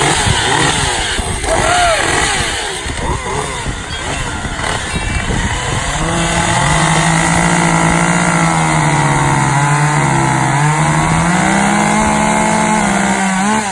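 Gasoline chainsaws running, revving up and down in quick swells. About six seconds in, the sound settles into a steady full-throttle drone while cutting firewood; its pitch sags a little under load, then climbs near the end.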